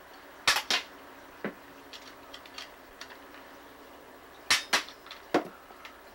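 Finger missiles shooting off a Mechagodzilla costume hand, each with a sharp pop or clack. There is a close pair of clacks about half a second in, another pair about four and a half seconds in, and a single one shortly after.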